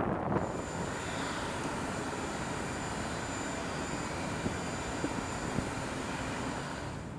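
Consolidated PBY Catalina flying boat's twin radial engines running steadily as it moves across the water.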